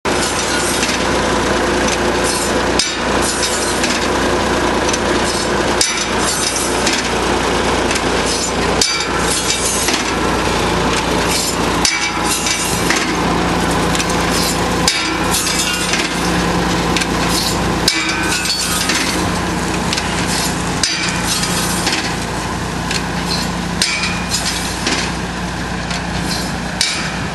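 Tractor running while it pulls a plastic tunnel layer, its steady engine noise mixed with continual clattering and knocking from the implement. Short dips break the sound about every three seconds.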